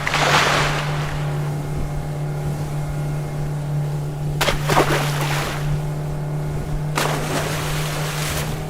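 A motorboat's engine drones steadily while water splashes and rushes past three times, at the start, about halfway through and near the end.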